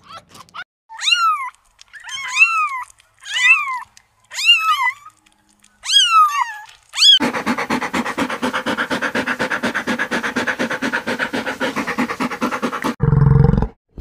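A red fox gives a series of short, high calls that rise and fall in pitch, about one a second. A rough collie then pants in a fast, even rhythm for about six seconds. Near the end a bison gives a loud, deep grunt.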